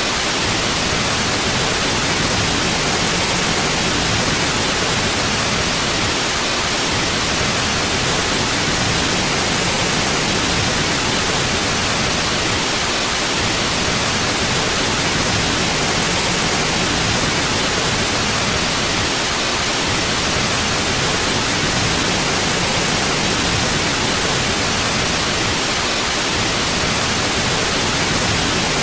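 Steady white noise: an even, unchanging hiss across the whole range, with no other sounds.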